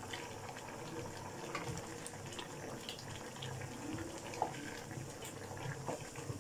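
Masala with goat brains and bones sizzling and bubbling in an open aluminium pressure cooker as it is fried down (bhuna), with a wooden spatula stirring it and a few soft taps against the pot.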